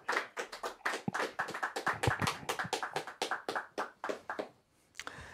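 A small group of people clapping by hand: sparse applause as a song ends, dying away about four and a half seconds in.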